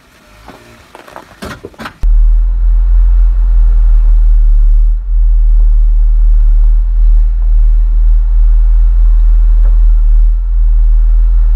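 Jeep Wrangler's engine running at crawling pace, picked up as a loud, steady low rumble through a camera mounted on its hood. It comes in suddenly about two seconds in, after a few faint knocks.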